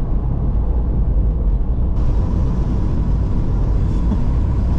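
Car driving over a rough, broken mountain road: a steady low rumble of engine and tyres. A faint steady whine joins about two seconds in.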